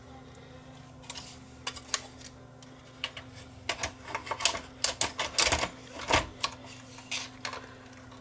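Irregular clicks and clunks of a Sony DAT deck mechanism being handled and fitted back into the recorder's case, coming thicker from about four seconds in, over a faint steady hum.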